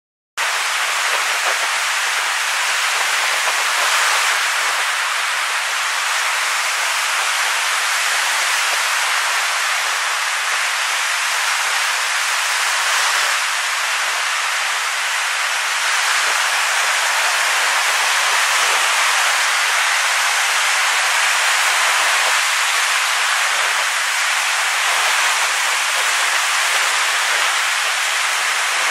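Steady, even hiss of rushing water, like surf or rain, starting abruptly about half a second in. There are no separate splashes or knocks in it.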